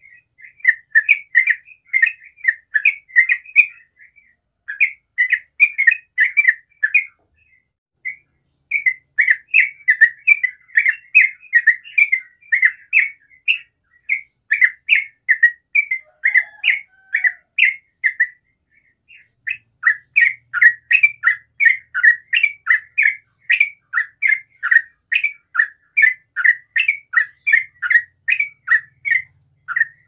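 Yellow-vented bulbul (trucukan) singing in a rapid 'ropel' chatter: long runs of short, quick notes, about three a second, broken by brief pauses about 4, 8 and 19 seconds in.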